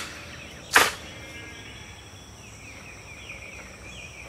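Outdoor ambience of birds chirping and a steady high insect drone, with one sharp knock a little under a second in.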